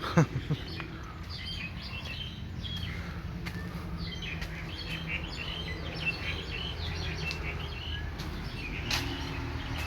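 Small birds chirping and twittering, many short quick calls overlapping, over a steady low background rumble.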